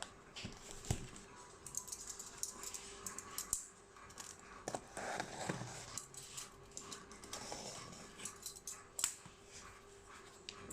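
Packaging being handled: scattered small clicks, taps and rustles, with a faint steady hum underneath.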